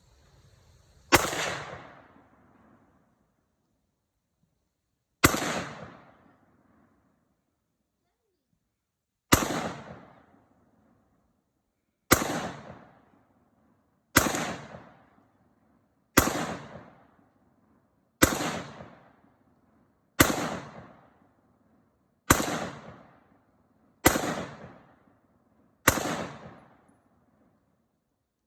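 AR-15 rifle fired in single shots, eleven in all: the first three about four seconds apart, then a steady shot about every two seconds. Each shot is sharp and trails off over about a second.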